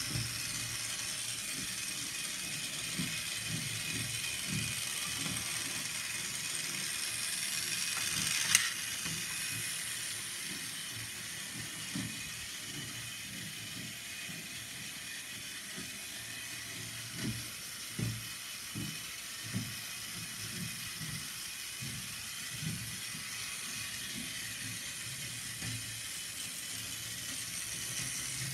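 Motorised toy model of a Krauss steam locomotive on plastic track: a steady whirr of its small electric motor and gears, with irregular soft knocks and one sharp click about eight seconds in.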